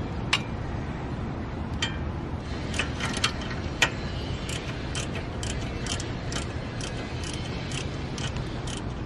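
Light metallic clicks as the bracket bolt for a braided steel brake line is fitted at the caliper. A few scattered clicks come first, then a steady run of about two clicks a second, over steady low background noise.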